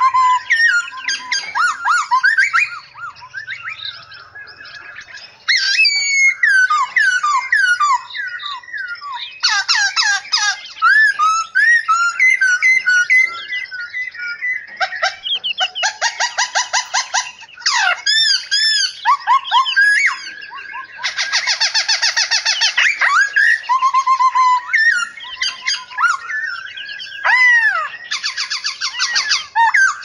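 Several caged songbirds singing at once: a dense, overlapping mix of clear whistles, swooping glides and fast trills of repeated notes, thinning out briefly about four seconds in and again near twenty seconds.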